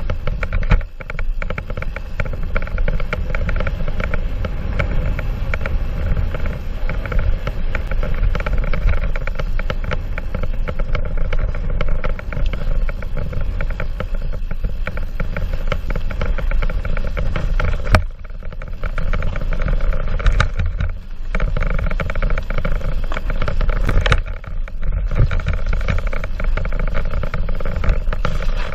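Mountain bike ride on a rough dirt trail heard from the bike- or helmet-mounted camera: a continuous rumble and rattle of tyres and bike over the ground, with a few sharp knocks over bumps, one about 18 seconds in and another near 24 seconds.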